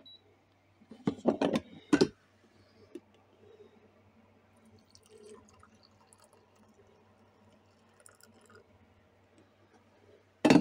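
Clicks and knocks as the carafe is drawn out of a drip coffee maker about a second in, then coffee pouring faintly into a ceramic cup. A loud knock near the end as the carafe is set back in the machine.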